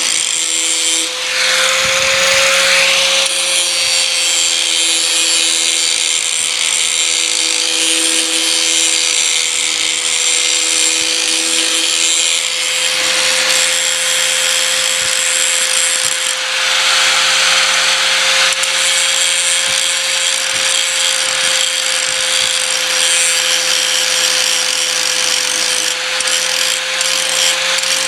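Power grinder running with a steady whine while its disc grinds the steel edge of a Bush Hog rotary cutter blade, the grinding hiss growing louder about two seconds in and again midway.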